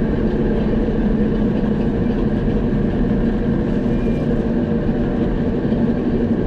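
Forage harvester's engine running steadily: a constant, even machine hum.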